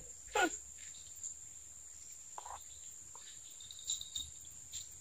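Steady high-pitched drone of insects in the swamp forest, with a short falling human vocal sound about half a second in and a few faint brief sounds after it.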